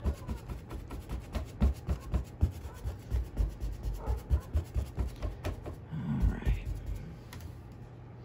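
Flat bristle brush loaded with gesso tapped repeatedly against a stretched canvas, soft thumps with a scratchy brush rub, a few a second. The tapping stops about seven seconds in.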